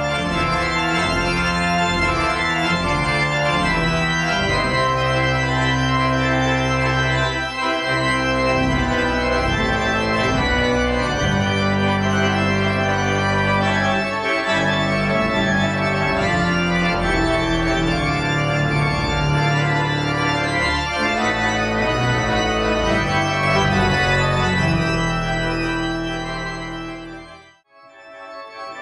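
Pipe organ playing loud sustained chords. Near the end the sound dies away into a brief silence, then another organ passage starts.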